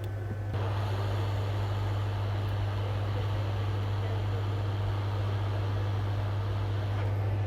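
Hot air rework station blowing a steady stream of air, switched on about half a second in, to work the 100K resistor on a laptop motherboard, over a steady low electrical hum.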